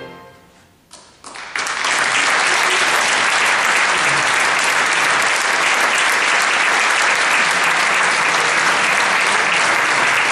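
The final notes of a violin, saxophone and piano trio fade away, and after a brief hush an audience breaks into steady applause about a second and a half in.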